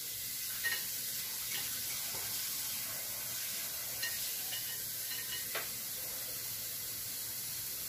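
Steady hiss from a pot of beans cooking on a gas burner, with a few faint clinks off to the side.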